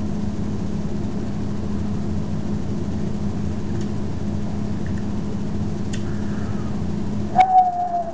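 A steady low machine hum fills the room, with a few faint clicks as beer is sipped from a glass. Near the end comes a sharp click, then a thin whine that slowly falls in pitch.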